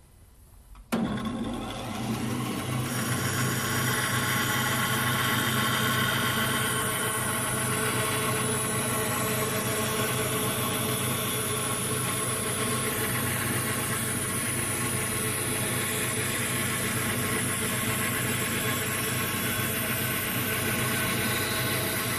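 Vertical bandsaw running and cutting along a curved line through a softwood board, a steady machine hum with high whining tones over it. The sound comes in abruptly about a second in.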